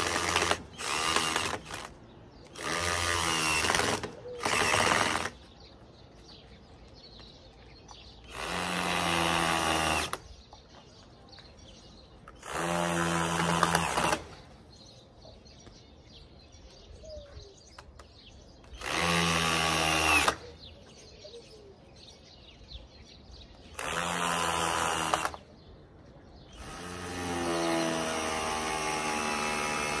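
Cordless drill-driver working into the wooden beams of a frame in about nine short bursts of one to two seconds each, the last one running about four seconds.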